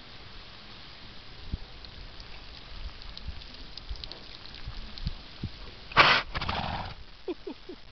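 A horse nosing and mouthing the camera: a sudden loud rush of noise about six seconds in as its muzzle meets the microphone, then rougher rubbing noise for about a second. Scattered soft thumps come before it.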